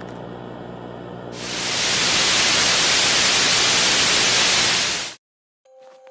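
Loud static hiss, like a detuned TV, swelling in over about half a second, held steady for about four seconds, then cutting off abruptly into silence.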